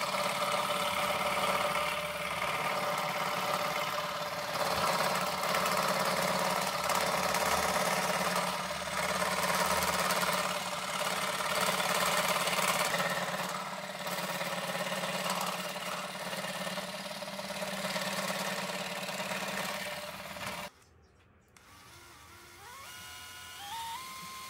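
Bench scroll saw running and cutting a thin wooden plate into wheel-rim rings, a steady machine noise with a hum. It stops suddenly, and near the end an electric drill spins up with a rising whine.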